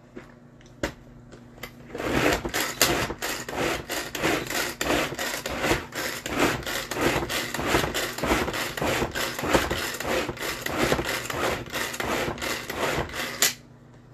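Tupperware Power Chef pull-cord chopper worked with quick, repeated pulls, its cord rasping out and back as the spinning blades chop cabbage. It starts about two seconds in after a few light clicks and stops suddenly near the end.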